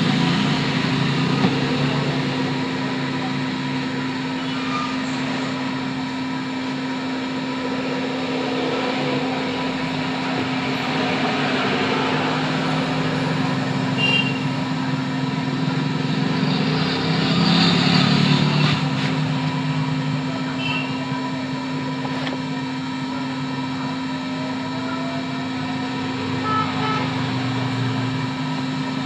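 Steady hum of a hot-air SMD rework station's blower running, with fixed tones over a haze of noise and a louder swell of noise about 17 seconds in.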